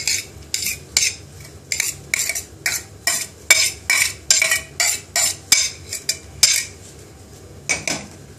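Metal spoon scraping chopped onion off a metal dish in quick repeated strokes, about two or three a second, which stop about two seconds before the end; one last scrape follows near the end.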